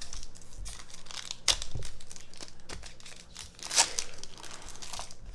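Wrapper of a Topps Chrome trading-card pack crinkling as it is handled and torn open, with sharp crackles about one and a half and four seconds in.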